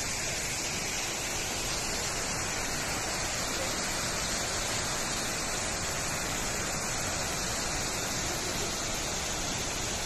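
Steady, even rush of Wulai Waterfall, a tall waterfall pouring down a rock face.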